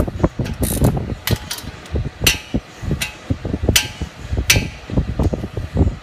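Hand tools working on the brake caliper bolts: about seven sharp metal clinks, spread over the first four and a half seconds, over a constant low rumbling and thumping of wind and handling noise on the microphone.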